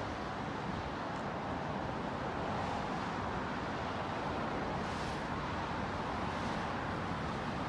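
Steady traffic noise: a constant hiss of cars on wet roads, with no distinct events.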